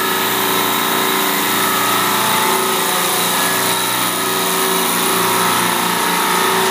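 Copeland Discus semi-hermetic reciprocating refrigeration compressors running steadily: an even mechanical hum with several steady tones over a hiss.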